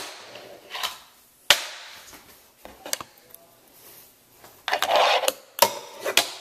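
Fingerboard tricks on a desk: a few sharp clacks as the small deck pops and lands, and a brief scraping rush about five seconds in.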